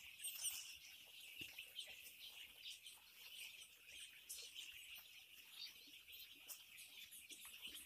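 A flock of week-old chicks peeping all the time, a faint dense chorus of many short high chirps.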